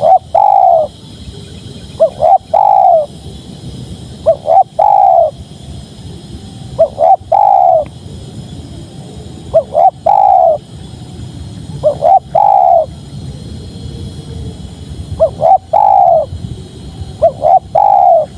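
Spotted dove (tekukur) cooing: a phrase of two or three short notes followed by a longer falling coo, repeated about every two and a half seconds.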